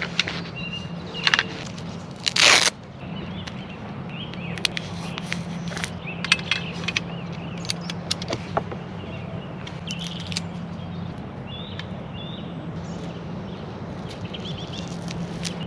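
Scattered clicks and short scrapes from an airsoft rifle being handled, the loudest about two and a half seconds in, over a steady low hum, with small birds chirping now and then.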